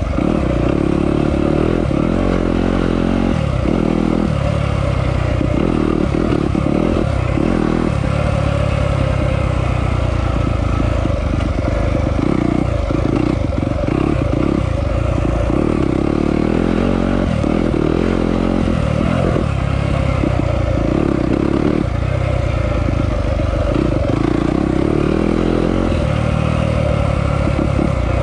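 Yamaha off-road motorcycle's engine running hard, its revs rising and falling again and again as it is ridden.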